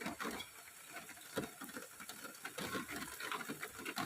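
Rain falling, with irregular drops pattering and tapping over a steady hiss.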